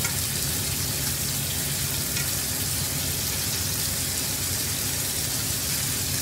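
Food frying in a pan: a steady sizzle.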